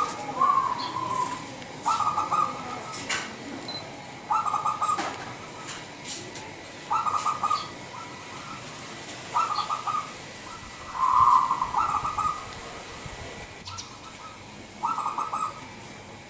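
Zebra dove (perkutut) cooing its song: a short burst of rapid, staccato notes repeated about every two and a half seconds, about six times, with one longer, louder phrase about two-thirds of the way through.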